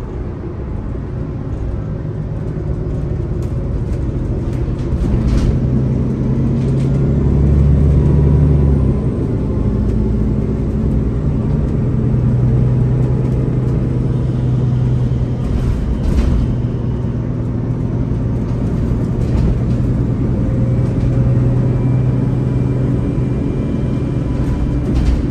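MAN Lion's City articulated bus's diesel engine and ZF automatic gearbox pulling under way, heard from inside the passenger cabin. A loud, steady drone whose pitch shifts several times, with a few short knocks.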